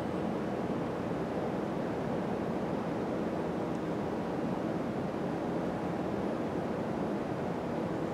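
Steady, even rushing room noise in a church, with no distinct events.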